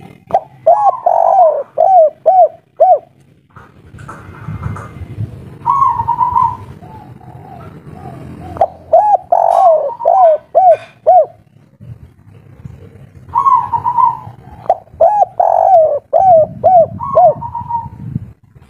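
Spotted dove cooing in three bouts, in the song style keepers call 'kuk 3'. Each bout is a quick run of short coos with a higher drawn-out note.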